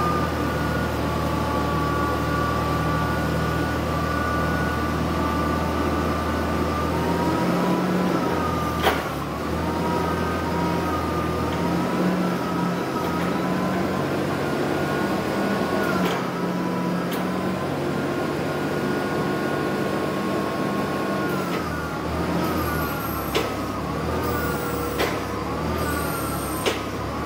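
Hyster 90 propane fork truck running, with a steady high whine over the engine hum as its double mast raises the forks to full height. A handful of sharp knocks come along the way, most of them near the end.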